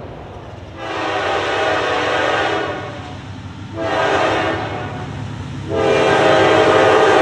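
Multi-chime air horn of a Norfolk Southern GE Dash 9-40CW locomotive sounding for a grade crossing, over the low rumble of the approaching train. A long blast about a second in, a short one midway, then a louder blast that is still sounding at the end.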